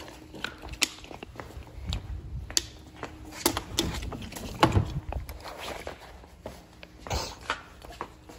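Gear being handled and packed into a bag: plastic water bottles and a plastic-wrapped package knocked and crinkled, making irregular sharp clicks and knocks over rustling, with footsteps.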